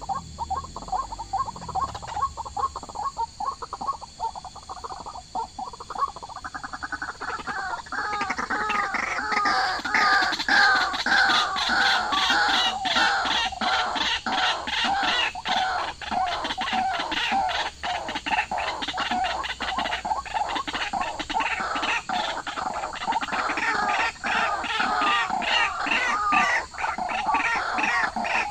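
Many birds chirping at once in a dense, overlapping chorus of short calls, which thickens and grows louder about eight seconds in.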